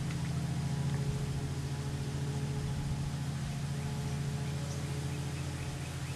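An engine running steadily at constant speed: a low, even hum with a fast pulse and a few steady higher tones.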